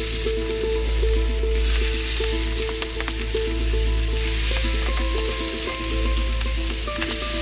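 Racks of lamb sizzling steadily in a preheated pan as they are laid in fat side down, over soft background music with held notes.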